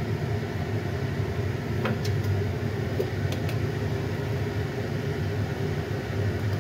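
A steady low mechanical hum, with a few light clicks and taps as a plastic lid is pried off a metal seasoning tin and a spoon goes into the powder.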